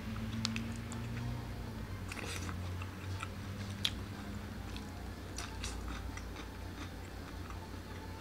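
A person chewing chicken yakitori, with scattered small clicks and taps. One sharper click comes about four seconds in, over a low steady hum.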